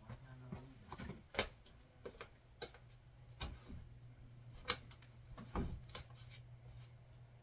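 Irregular light clicks and knocks, about eight spread over the seconds, from objects being handled and set down during room tidying, over a steady low hum.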